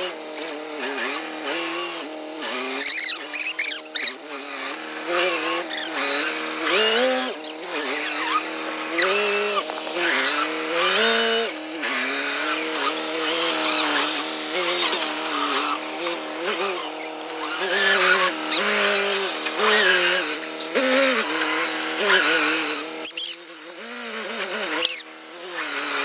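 Massey Ferguson 375 tractor's four-cylinder diesel engine working under load, its pitch rising and falling again and again as the tractor pushes and climbs over a pile of chopped green fodder with its front blade.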